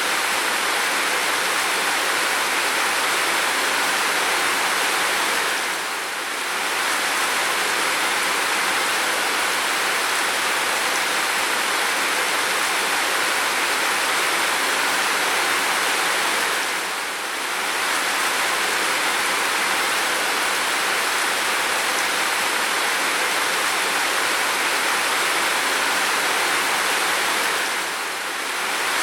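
Steady heavy rain, an even hiss with no distinct drops standing out, dipping slightly in loudness for a moment about every eleven seconds.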